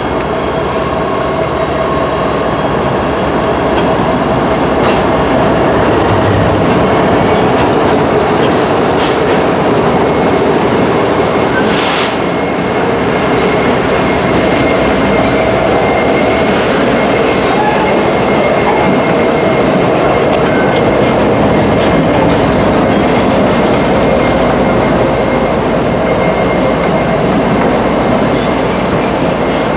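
Freight train rolling slowly through a rail yard: a steady loud rumble and clatter of steel wheels on rail, with a thin high squeal of wheels on curved track about halfway through.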